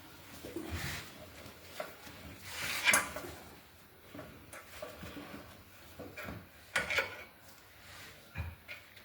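Irregular knocks, clunks and scraping as a tight front wheel spindle is tapped and worked out of a motorcycle's front fork. The loudest knocks come about three seconds and seven seconds in.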